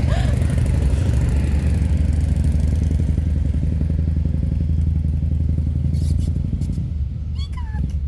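A motor vehicle's engine running nearby with a deep, steady, pulsing rumble that fades away about seven seconds in. Near the end comes a short high call that falls in pitch.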